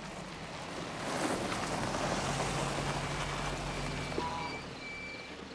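A passing motor vehicle, its noise swelling from about a second in and easing off after about four seconds. A steady low hum runs through the middle, and a few short high tones come near the end.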